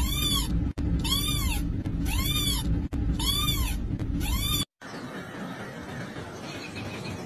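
Kitten meowing repeatedly in high mews, about one a second, each rising and then falling in pitch. The mewing stops abruptly about two-thirds of the way in.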